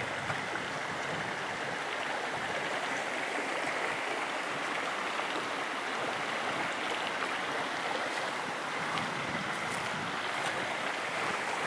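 Steady rushing of a mountain stream flowing close by.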